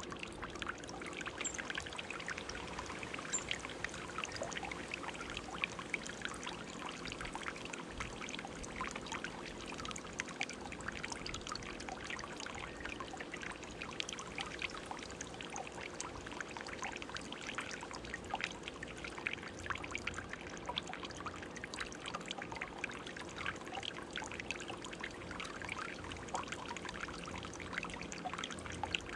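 Tiered garden fountain running: water spilling from the upper stone bowl into the basin below with a steady trickling splash.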